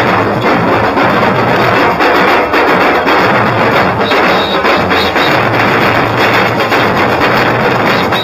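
Batucada street drum group playing together: large bass drums struck with mallets over other drums in a loud, dense, fast rhythm.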